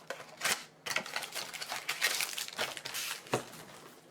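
Trading-card pack wrapper crinkling and rustling in the hands, with irregular crackles as it is handled and torn open.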